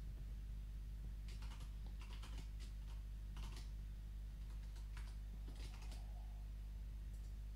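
Computer keyboard being typed on: faint, scattered key clicks in short runs over a steady low hum.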